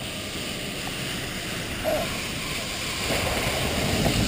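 Steady rushing wind noise on the microphone while moving down an artificial ski slope, growing a little louder near the end.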